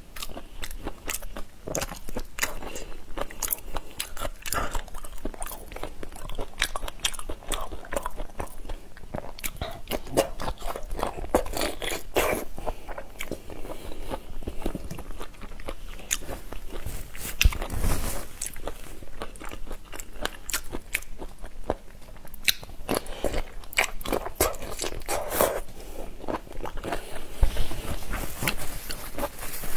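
Close-miked chewing and crunching of raw spicy marinated shrimp: a steady stream of wet mouth clicks and crunches.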